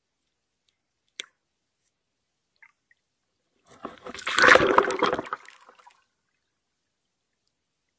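A beaver swimming off close by underwater, its strokes churning the water into bubbles: a rush of water noise lasting about two seconds midway, loudest at its start. A single faint click comes about a second in.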